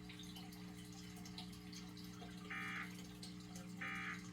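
Emergency Alert System end-of-message data bursts: two short, identical screechy digital bursts a little over a second apart, over a low steady hum.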